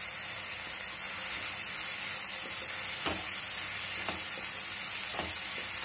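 Chopped onion, tomato, sweet corn and green capsicum sizzling steadily in oil in a non-stick frying pan. From about three seconds in come a few soft scrapes of a wooden spatula stirring the vegetables.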